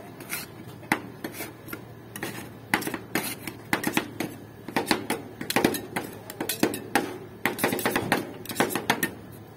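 Two steel spatulas chopping and scraping fruit and cream against the frozen steel plate of a rolled-ice-cream cart: rapid, irregular metal clacks and scrapes, coming faster and louder from about three seconds in.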